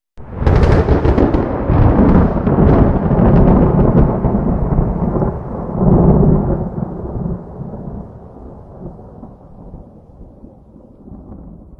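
Thunderclap from a nearby lightning strike: it breaks out of silence with a sharp crackling crack, rolls into a loud rumble that swells again about six seconds in, then fades slowly.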